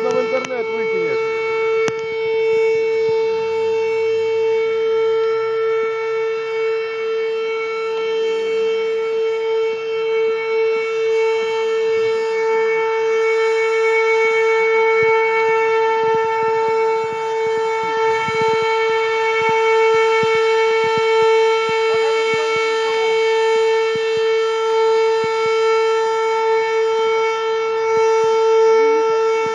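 An alarm siren holding one loud, steady tone without rising or falling.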